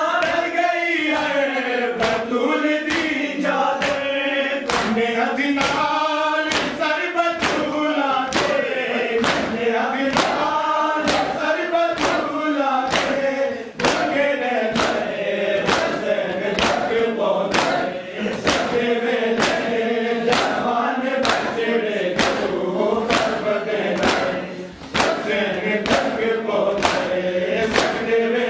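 Group of men chanting a noha lament in unison during matam, with the sharp slaps of palms beating on chests in a steady rhythm, a little more than one a second, under the chanting.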